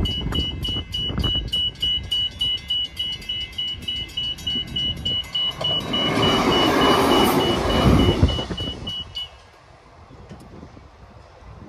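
Level-crossing warning bells ringing rapidly and evenly, then stopping about nine seconds in. A Transperth A-series electric multiple-unit train runs over the crossing, its rumble rising to the loudest point from about six to eight seconds in and then fading.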